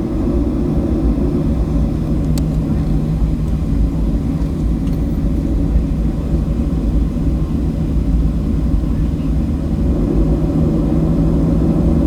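Steady low rumble and hum inside the cabin of a Boeing 737-700 as its CFM56 jet engines run before takeoff, with a single click about two seconds in.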